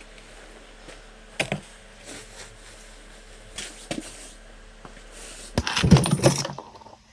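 Gear being handled: a few light knocks, then a loud burst of clattering and rattling about six seconds in.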